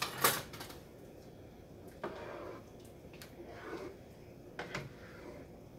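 Kitchen utensils clicking and knocking, the loudest right at the start, then a spatula stirring diced papaya in water in a frying pan, with short swishes and a few more light knocks.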